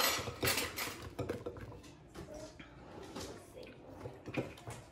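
A spatula scraping and knocking against the sides of a stainless steel mixing bowl while stirring through whipped chocolate mousse. The clatter is irregular, with sharper knocks in the first second.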